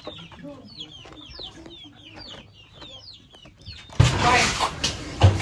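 Chickens clucking, a string of short calls that fall in pitch, a few each second. About four seconds in, a sudden loud noise covers them.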